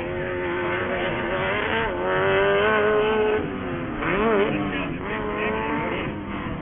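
Off-road race buggy engine revving hard, its pitch climbing and dropping as the throttle is opened and lifted, with a quick up-and-down warble about four seconds in.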